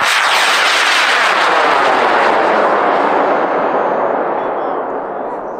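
High-power rocket motor (AeroTech J135) firing at liftoff: a sudden loud roar that starts at ignition, holds steady for about three seconds, then slowly fades and sinks in pitch as the rocket climbs away.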